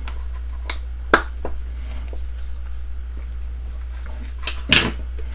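Small clear plastic hinged box being prised open by hand: a few sharp plastic clicks, the sharpest about a second in, and another click with brief handling near the end, over a steady low hum.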